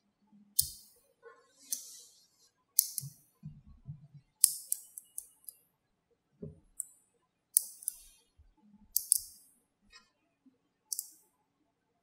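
Small neodymium magnetic balls clicking sharply as they snap together and are pressed and reshaped in the hands, a dozen or so separate clicks at uneven intervals, with a few dull knocks of handling.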